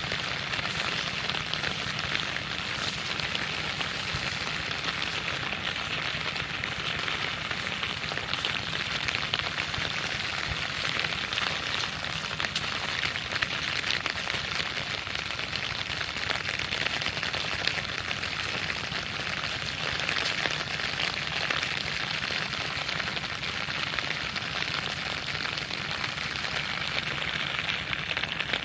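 Heavy rain falling and striking surfaces: a dense, steady patter of drops.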